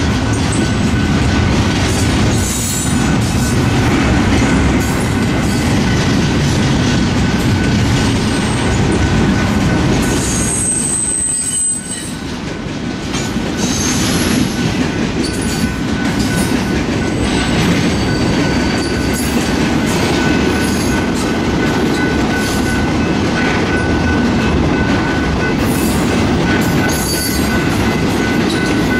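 Double-stack intermodal freight train rolling past: a steady loud rumble of wheels on rail, with clicks as the wheels cross rail joints and a thin, steady squeal from the wheels.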